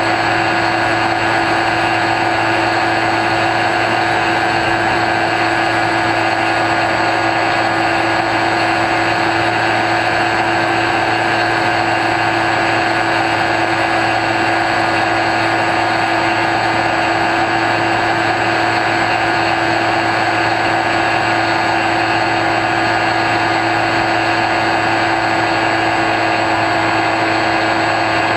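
Electric motor and pusher propeller of an X-UAV Talon FPV plane heard from the onboard camera in flight, a loud, steady whine at constant throttle over a haze of air rush.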